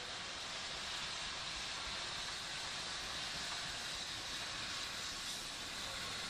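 BR Britannia-class Pacific steam locomotive 70013 Oliver Cromwell passing with its train, giving a steady hiss of steam and running noise.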